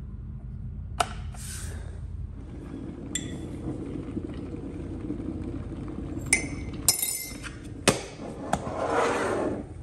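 Russell Hobbs electric kettle switched on with a click, then a low steady rumble as its water starts to heat. A metal spoon clinks a few times against a glass coffee jar and a mug, and near the end a plastic lid scrapes as it is screwed onto the jar.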